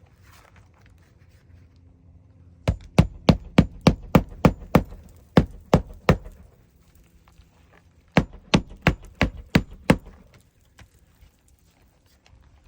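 Hammer driving roofing nails through a 3-tab asphalt shingle into the roof: a quick run of about a dozen sharp blows, a pause, then about seven more.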